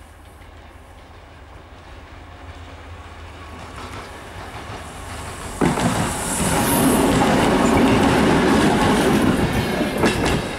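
A 2M62U two-section diesel locomotive, with two-stroke V12 diesel engines, hauls a passenger train past close by. Its engine and rail noise swell steadily, then jump sharply about five and a half seconds in as the locomotive draws level, and the noise stays loud. Near the end the coaches' wheels click over the rail joints.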